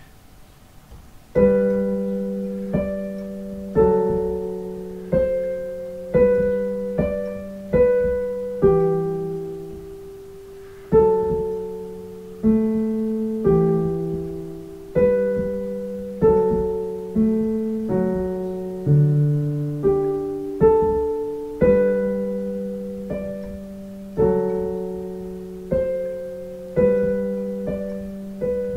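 Digital piano played slowly, one chord after another, each struck and left to die away before the next, starting about a second and a half in.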